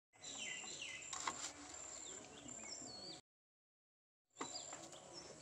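Small birds chirping in short, falling calls over a thin, steady, high-pitched tone, with one sharp click about a second in. The sound cuts out completely for about a second just after the three-second mark, then the chirping resumes.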